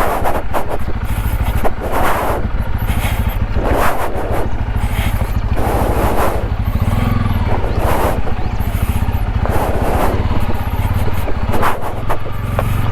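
Motorcycle engine running steadily at low revs close by, with a rushing noise swelling about every two seconds.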